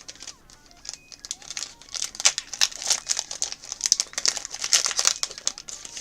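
Foil wrapper of a Pokémon TCG booster pack crinkling and crackling as it is torn open and handled. The crackling is sparse at first and grows dense and busy from about two seconds in.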